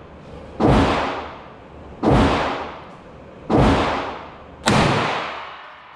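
Four 9mm pistol shots from a Glock 19 in a CSG Micro chassis, fired at a steady pace roughly a second and a half apart. Each shot has a long echoing tail from the indoor range.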